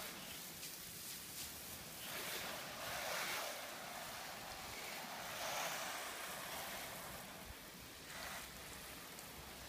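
Low-pressure soft-wash spray of bleach-based cleaning solution hitting vinyl siding, a hiss of water that swells and eases several times as the spray is passed over the wall.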